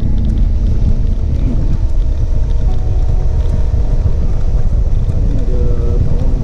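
Wind rumbling over the microphone of a moving Suzuki V-Strom 650XT motorcycle, with its V-twin engine running steadily underneath at cruising speed.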